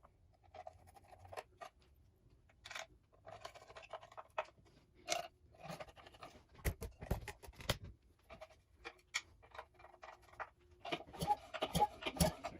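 Scattered metal clicks and scrapes of a screwdriver and small parts as screws are worked on an outboard motor, in uneven taps with no steady rhythm.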